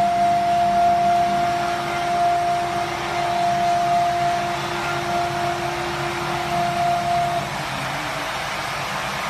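Double-spindle CNC wood lathe running as it turns two wooden balusters, a steady machine noise with a steady whine that stops about three-quarters of the way through.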